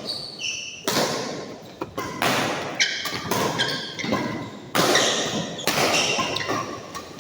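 Badminton rally: a series of sharp racket hits on the shuttlecock, irregularly about a second apart, each ringing out in the hall. Between the hits come short high squeaks of shoes on the court.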